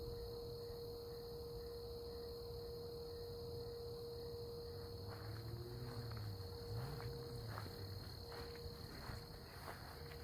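A steady hum at one pitch, likened to a phone off the hook, which the recordist blames on nearby cell towers. It sits over a steady high drone of night insects, with faint ticks in the second half.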